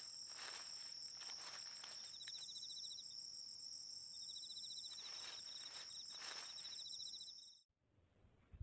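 Faint crickets chirping: a steady high trill with two stretches of rapid pulsed chirps a little lower in pitch. It cuts off suddenly near the end.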